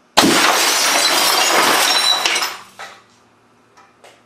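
A 27-inch CRT television's picture tube imploding when struck by an AA battery fired from an air cannon. A sudden loud crash of shattering glass runs on for about two seconds, then dies away into a few scattered clinks of glass shards settling.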